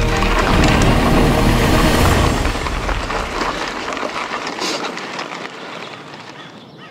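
A loud, steady rushing noise that fades away gradually over the second half.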